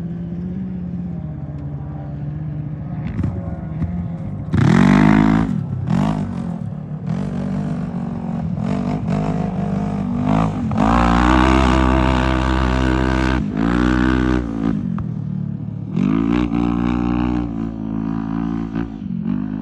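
UTV engines revving and accelerating hard, the pitch climbing and dropping again several times. The loudest bursts come about five seconds in and from about eleven to thirteen seconds.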